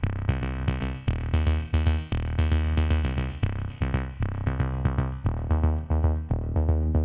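Background music: a tune of short, quickly repeated notes over a steady beat.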